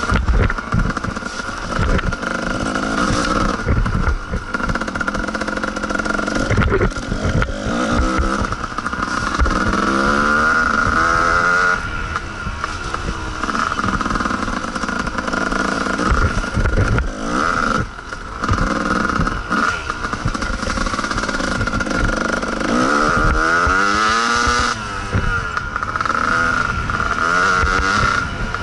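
Kawasaki KDX two-stroke dirt bike running under way on a trail, the engine revving up and falling back several times as the rider works the throttle, with occasional knocks and rattles from the bumpy ground.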